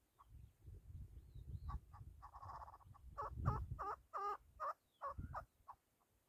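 Chukar partridge calling: scattered short clucking notes, then a fast run of chuk notes around the middle that tails off into a few single notes, over a low rumble.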